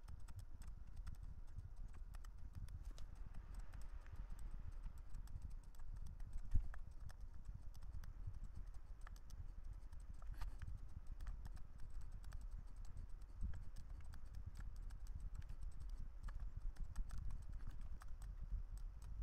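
Faint, irregular clicking of a computer mouse and keyboard while editing on screen, with one louder click about six and a half seconds in, over a low background rumble.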